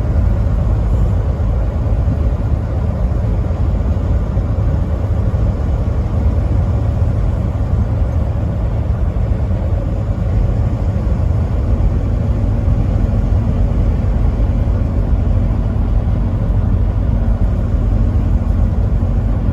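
Steady low road and engine rumble of a truck on the move, with no horn sounding.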